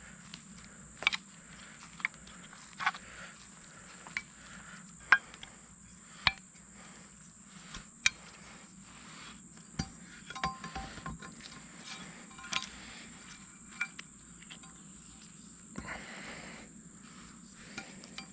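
Sharp metallic clicks and clinks, about one every second or two, from saddle-hunting climbing gear (carabiners and tether hardware) being handled while it is rigged to the tree, over a steady high-pitched whine.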